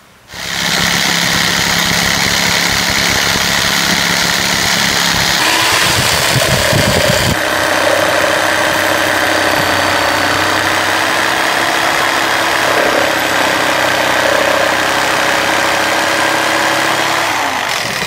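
Corded jigsaw starting up and sawing through PVC board: a loud, steady motor whine with the blade chattering in the cut. The pitch shifts about five to seven seconds in, and the saw stops near the end.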